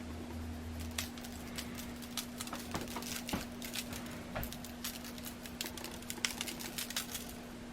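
Irregular light clicks and taps of kitchen utensils handling food, several a second at the busiest, over a steady low electrical hum.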